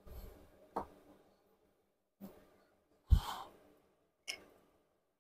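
Light metal clicks of Yamaha R1 crankshaft main bearing caps and shells being handled in the open crankcase, with one louder knock about three seconds in, followed by a short breathy exhale.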